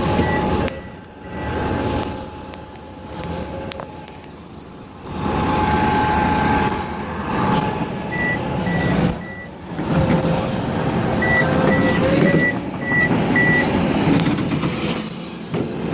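Heavy machinery engine working, its level rising and falling, while a reversing alarm sounds in runs of short high beeps about twice a second: at the start, past the middle and again near the end.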